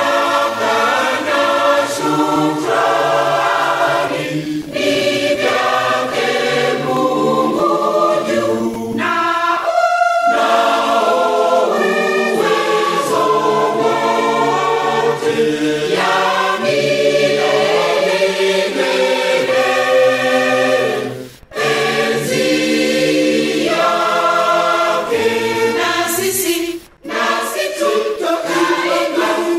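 Tanzanian Lutheran cathedral choir singing a hymn, low and high voices together in parts. The singing breaks off briefly twice in the latter half between phrases.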